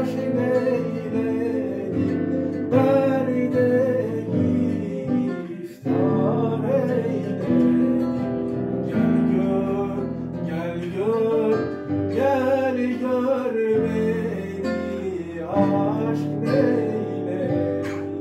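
Piano and classical guitar playing together, an instrumental passage of a slow Turkish devotional song, with a brief break about six seconds in.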